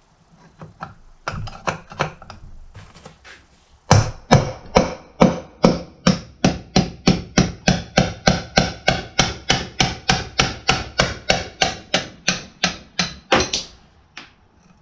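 Hammer blows on a drift punch, knocking a blown bearing out of a Scag mower's front caster wheel hub. A few light taps come first, then a steady run of hard metal-on-metal blows, about three to four a second, which stop shortly before the end.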